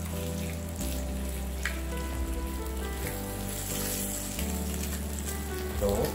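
Strips of meat sizzling and frying on a hot electric grill plate, a steady hissing crackle, under background music with slow-changing bass notes.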